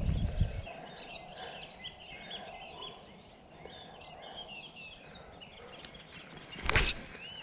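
Small birds chirping and twittering in the riverside trees, many short repeated calls throughout. Wind rumbles on the microphone in the first second, and a single sharp knock, the loudest sound, comes near the end.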